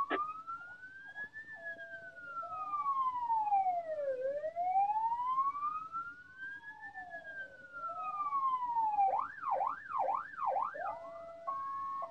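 Ambulance siren sounding. A slow wail rises and falls twice, switches to a fast yelp about nine seconds in, then changes to a stepped two-tone hi-lo pattern near the end.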